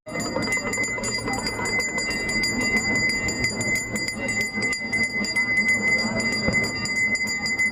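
Aarti bells ringing rapidly and continuously, with a steady ringing tone held under the quick strokes, over a mix of crowd voices.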